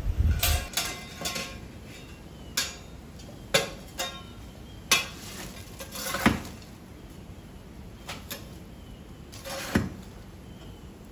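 Long-handled iron fire tool scraping and clinking against the hearth and andirons as glowing embers are raked out of a wood fire, in scattered knocks and scrapes with a brief metallic ring in the first second or so.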